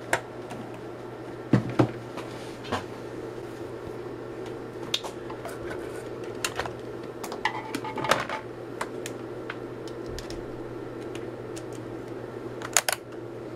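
Scattered clicks and clatter from a Hioki DT4252 digital multimeter being handled: its rotary selector switch is turned and the test-lead plugs are pulled from its jacks. A steady low hum runs underneath.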